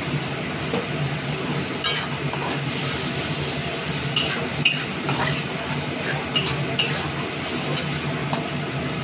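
Metal spatula stirring and scraping a thick onion-and-spice masala in an aluminium kadai, clinking against the pan's side a handful of times, over a steady hiss; the masala is being fried over raised heat before the chicken is added.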